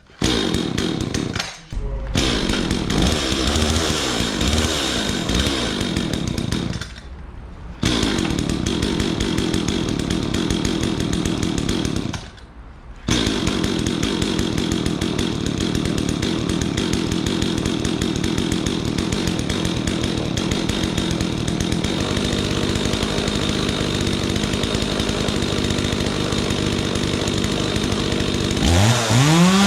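Two-stroke chainsaw engine running steadily at speed, twice dropping away briefly, in the first half, before picking up again.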